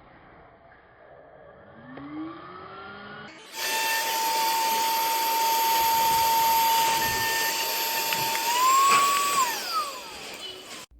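Cordless handheld vacuum motor. A faint rising whine comes first, then about a third of the way in the vacuum jumps to loud, steady running with a high whine. Near the end the pitch briefly rises and then winds down as it shuts off.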